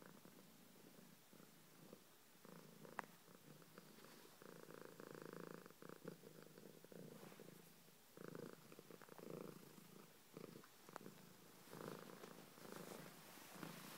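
Domestic tabby cat purring close up, soft and steady in swells about a second long as it breathes in and out, with a sharp click about three seconds in and another near the end.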